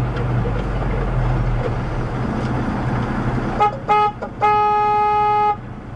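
Truck horn honked from inside the cab: two short taps about three and a half seconds in, then a held blast of about a second. Under it, the truck's engine runs with a low, steady hum.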